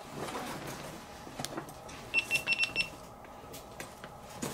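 GoPro Hero5 Black action camera beeping as it powers on: a quick run of about five short, high beeps about two seconds in. Before them come a few small clicks from the camera being handled.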